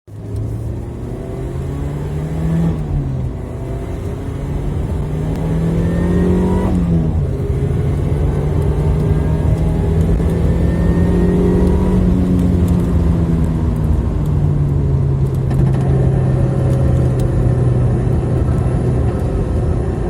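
Mazda MX-5 Miata (NC) four-cylinder engine pulling up through the gears. Its pitch rises and drops at gear changes about three and seven seconds in, then holds fairly steady while cruising, over steady road noise.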